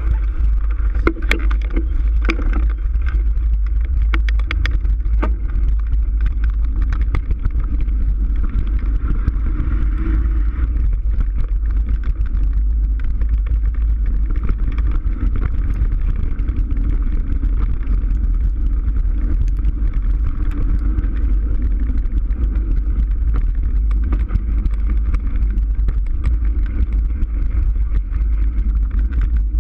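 Mountain bike rolling fast down a dirt trail, filmed on a GoPro: a heavy, steady rumble of wind on the microphone and tyres on the dirt, with sharp rattling knocks from the bike over the first several seconds.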